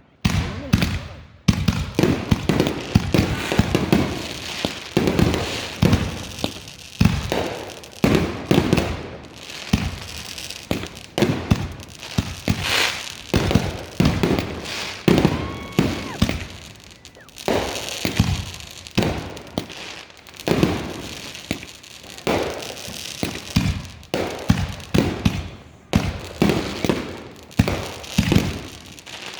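Fireworks going off in quick succession: a dense, unbroken run of bangs and crackles.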